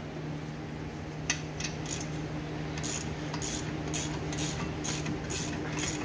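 Light metallic clicks and scrapes of hand tools working on a car's front brake caliper, coming about every half second from about a second in, over a steady low hum.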